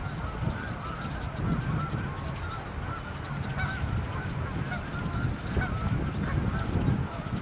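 A flock of birds calling continuously, many short overlapping calls at once, over a low steady rumble.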